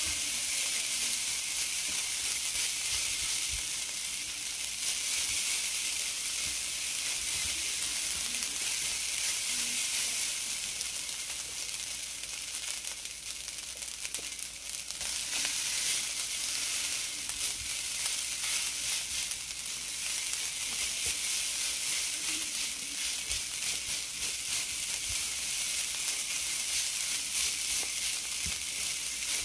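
Java fried rice sizzling as it fries in a nonstick skillet, stirred and turned with a silicone spatula that gives faint scrapes and taps. The sizzle eases briefly about halfway through, while the stirring stops.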